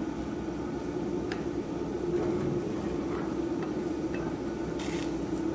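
Steady hum and rush of a Coleman propane camp stove burner on high under a pot of boiling rice, the flame running hotter than a simmer. A brief hiss comes about five seconds in.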